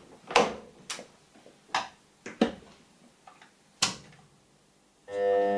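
A series of sharp clicks and knocks, about six, irregularly spaced, from hands working the lathe's plug, switches and chuck guard as it is readied to start. Near the end a steady sound with several fixed pitches comes in.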